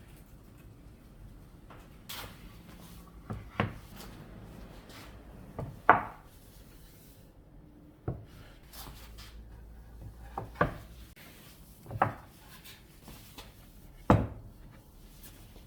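Wood being handled: about seven sharp knocks, a second or two apart, with lighter rubbing between them.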